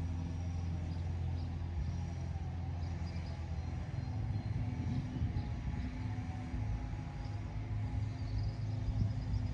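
Chainsaw engine running steadily off in the countryside, its low hum growing rougher and more uneven about halfway through, with a few faint bird chirps above it.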